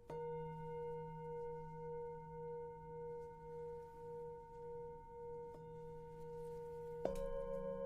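A singing bowl struck once and left ringing, its tone wavering slowly in loudness as it sustains. It is struck again about seven seconds in, adding new tones over the first.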